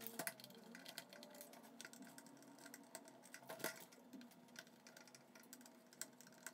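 Faint, irregular clicks and taps of a small screwdriver turning screws out of a plastic 1:18 RC buggy chassis, with plastic parts knocking lightly as they are handled; one tap is louder, about halfway through.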